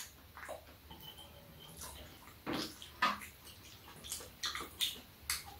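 People eating at close range: wet chewing and lip-smacking mouth sounds, a scattering of short clicks and smacks, the loudest two about halfway through.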